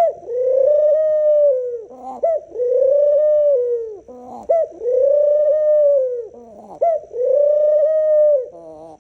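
A dove cooing: four long, arched coos of about a second and a half each, each led in by a short rising note, until the calling stops near the end.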